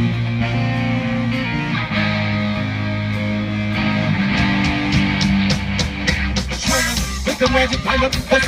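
Live rock band playing through stage amplifiers: electric bass and electric guitar over a drum kit. Held bass notes carry the first half, the drums get busier from about halfway, and crashing cymbals come in near the end.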